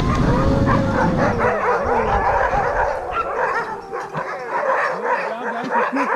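A chorus of sled dogs (huskies) barking, yipping and whining together, with long gliding howl-like calls overlapping. A low rumble of the sled moving over snow sits under them for the first second and a half.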